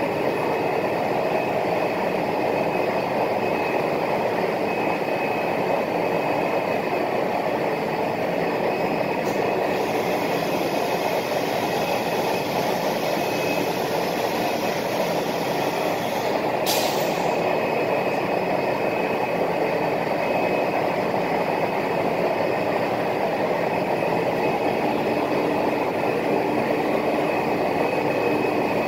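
CNC router running steadily, its spindle and machining making a continuous mechanical noise, with one sharp click about 17 seconds in.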